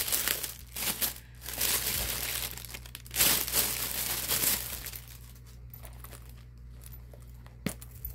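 A thin plastic bag crinkling and rustling as it is pulled off a small handbag, in bursts that are loudest in the first half, then quieter handling with a single sharp click near the end.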